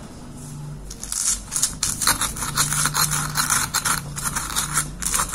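Wooden pestle grinding and crushing chili, salt, sugar and kencur against a stone cobek (mortar): a quick run of gritty scraping strokes, several a second, starting about a second in.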